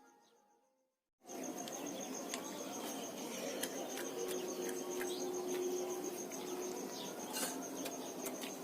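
Outdoor ambience with an insect trilling steadily at a high pitch, along with scattered light clicks. It starts about a second in, after a short silence.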